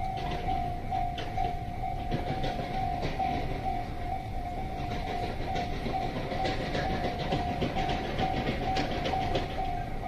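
Railroad crossing warning bell ringing steadily at about two strokes a second while a freight train hauled by an EF210 electric locomotive rumbles over the crossing. Its wheels click over the rail joints, the clicks coming thicker in the second half.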